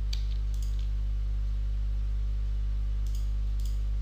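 Computer mouse clicking while selecting edges: two pairs of faint clicks, one near the start and one about three seconds in, over a steady low hum.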